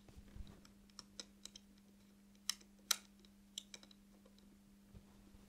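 Quiet, irregular small clicks and ticks as brass hex standoffs are twisted by hand into a circuit board's mounting holes, the sharpest two about two and a half and three seconds in. A faint steady hum runs underneath.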